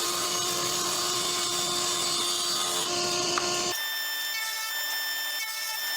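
A power tool running steadily on wood. A little over halfway through the sound changes abruptly to a thinner, higher whine.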